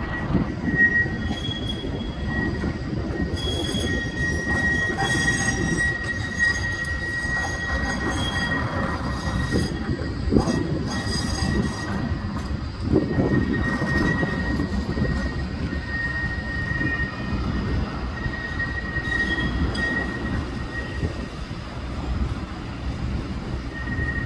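Bombardier Flexity 2 tram's steel wheels squealing on the rails: a steady high-pitched squeal that wavers slightly in pitch, over a low rumble.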